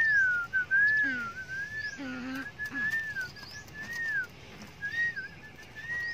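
Whistling: a long tune of slurred notes, each gliding up and down within a narrow pitch range, broken into short phrases.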